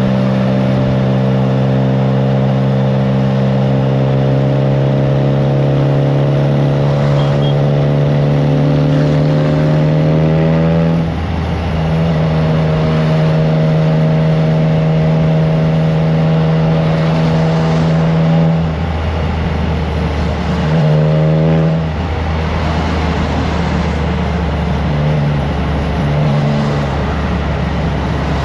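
Triumph Trident 660's three-cylinder engine through a FireTong aftermarket exhaust, heard from on board while riding: the engine note climbs slowly under throttle, drops with a gear change about 11 seconds in and holds steady. After about 19 seconds the throttle is rolled off and the engine fades under low wind rumble on the microphone.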